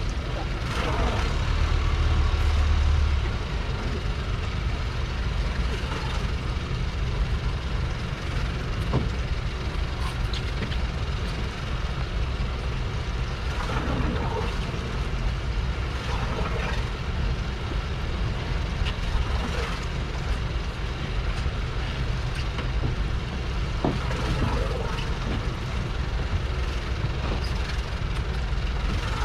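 Steady low rumble of a fishing boat's engine running, briefly louder about two seconds in, with faint scattered clicks.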